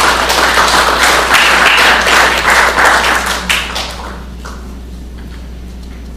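Audience applauding, a dense patter of claps that dies away about four seconds in, leaving a few scattered claps.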